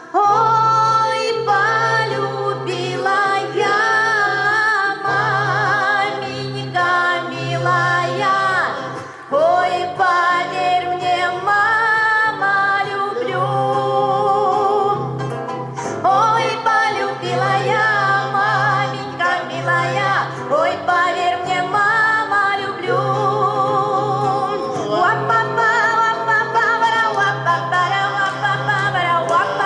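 Voices singing a Russian folk song with vibrato over an accompaniment with a steady low bass note. No words are made out, so the singing may be wordless.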